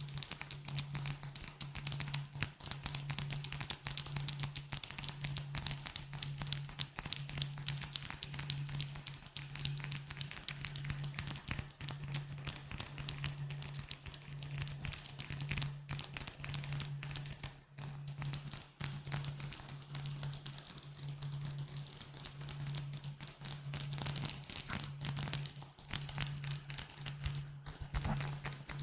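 Rapid tapping on glass bottles, a dense run of quick, bright clicks with a high ringing tone, broken by a couple of brief pauses in the middle.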